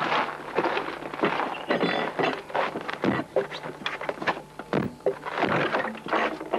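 Footsteps on a packed-snow path and carried buckets knocking, a few irregular thuds a second, then a wooden plank shed door being pulled open about four seconds in.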